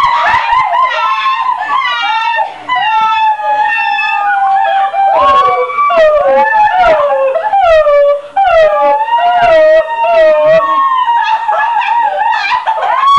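Girls howling and wailing with their voices in long, wavering, high glides, several voices overlapping.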